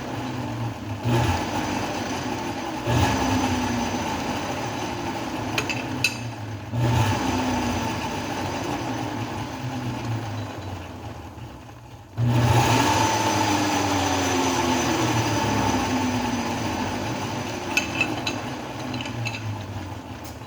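Metal lathe running with a chamfer tool breaking the edge of a drilled hole in a bolt blank: a steady machine hum that fades about eleven seconds in, then comes back suddenly at full level, with a few light clicks.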